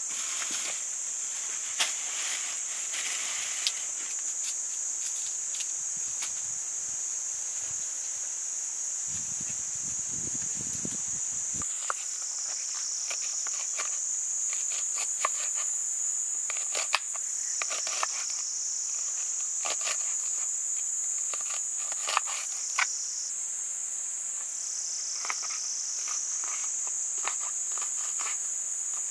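Insects singing in a steady high-pitched drone that dips slightly in pitch every five or six seconds, with scattered light clicks and knocks.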